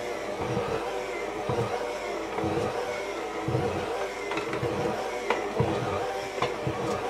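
Handheld electric mixer running steadily while it works a thick, sticky brioche dough in a glass bowl. Irregular low knocks and a few sharp clicks come through as the mixer heads bump and drag the dough against the bowl.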